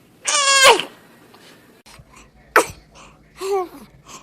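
Babies sneezing: a loud, high-pitched sneeze about half a second in, then a short sharp sneeze later on, followed by a brief falling little vocal sound.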